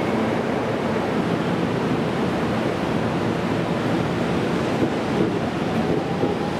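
Steady rushing noise of a train moving at the station platform, with a faint rising electric-motor whine near the end.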